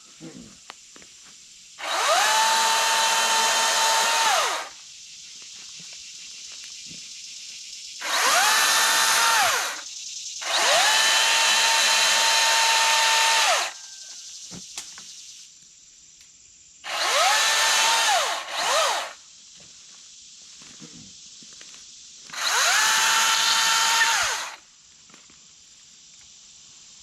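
Milwaukee M18 Fuel 14-inch top-handle cordless chainsaw cutting up a fallen tree in five bursts of two to three seconds each. In each burst the electric motor spins up quickly to a steady whine, then winds down as the trigger is let go.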